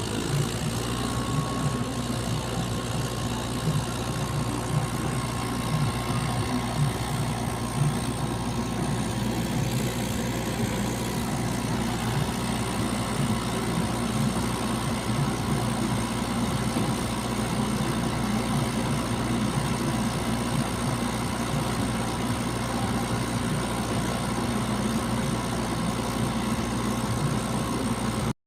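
Heavy diesel engine running steadily, with a low, even pulse that holds throughout.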